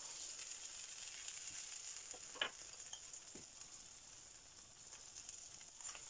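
Oil sizzling faintly under a potato paratha frying on a hot tawa, with a single light click about two and a half seconds in.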